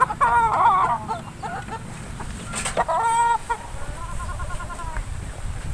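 Gamefowl chickens clucking and calling: several short pitched calls, then a quick run of clucks about four seconds in.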